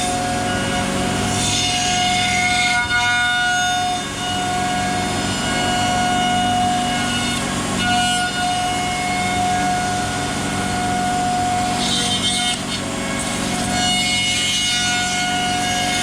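CNC router machining wood: the steady whine of the spindle with the noise of the bit cutting, its tones dropping out and returning every few seconds as the cut changes.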